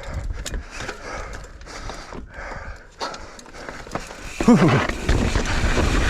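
A mountain biker breathing hard in quick, regular pants, about two a second. About four and a half seconds in he lets out a falling grunt, then wind rushes over the helmet microphone.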